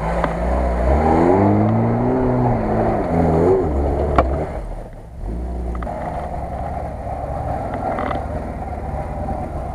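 Lada Niva (VAZ-2121) engine revving hard under load as it climbs a dirt slope, its pitch rising and falling for a few seconds. After a brief drop about five seconds in, a steadier engine note follows, with a few knocks.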